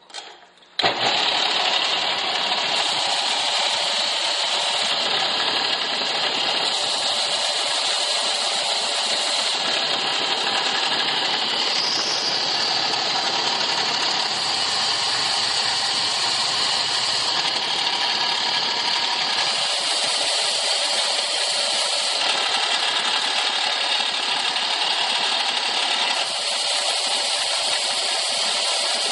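Bench-top belt-and-disc sander running with small wooden pieces held against its sanding belt: a steady, loud hiss of abrasive on wood over the motor's hum. It starts abruptly about a second in.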